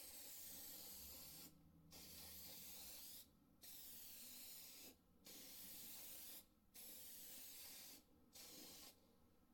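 Meguiar's clear headlight coating sprayed from an aerosol can in six separate passes, each a hiss of one to two seconds with short pauses between, the last one shorter. It is a light first coat of clear coat being laid over a sanded and polished headlight lens.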